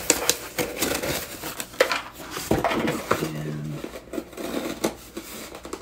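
Perfume and lotion packaging being handled: a run of light taps, clicks and knocks of bottles and boxes being picked up and set down, with a brief vocal hum a little over halfway through.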